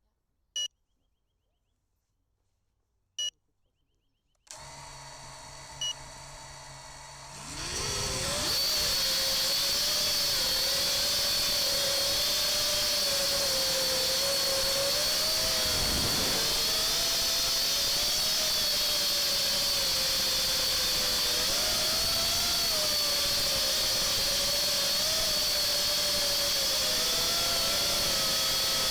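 FPV racing quadcopter: two short electronic beeps, then a steady low hum with another beep. About seven and a half seconds in, the brushless motors spin up into a loud, steady propeller whine whose pitch wavers with the throttle, briefly dropping and recovering around the middle.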